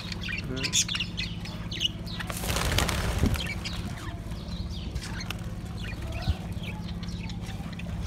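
A flock of budgerigars chattering with many short, high chirps, with a brief burst of wing flapping about two and a half seconds in, over a low steady hum.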